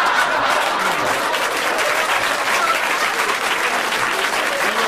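An audience applauding steadily: dense, even clapping after a punchline.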